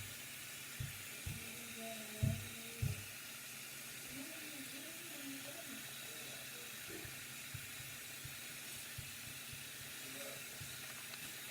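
Tap water running steadily into a bathroom sink while a toy truck is rinsed of soap, with a few knocks in the first three seconds.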